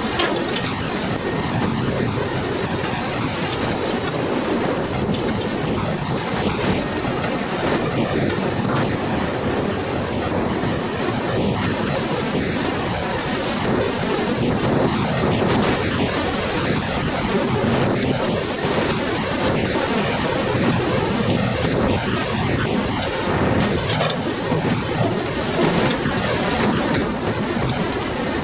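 Hydraulic log-grapple crane running with a steady, unbroken drone as it swings its boom and lifts logs; no separate knocks or clatter stand out.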